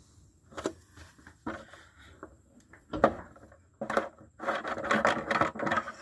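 Handling of a Cub Cadet lawn tractor's oil dipstick: a few sharp clicks and knocks as it is gripped and worked out of its tube, then about two seconds of rubbing and scraping near the end.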